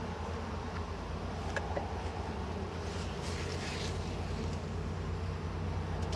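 Honeybees buzzing around an open hive, a steady hum, while a stuck frame is being worked loose; a few light clicks come about a second and a half in.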